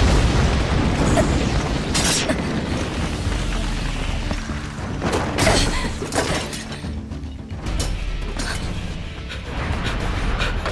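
Crashing masonry and clattering debris as a giant's fist smashes through a stone wall and tiled roof, with a low rumble and several sharp impacts about 2, 5 and 6 seconds in, over music.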